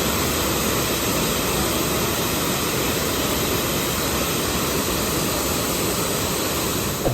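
Steady, even roar of falling water from a large waterfall, Shifen Waterfall.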